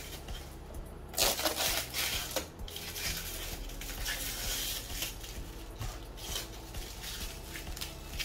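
Rustling and crinkling of packing material being handled while a printer is unpacked, loudest for about a second and a half starting about a second in, then a steadier rustle with small clicks.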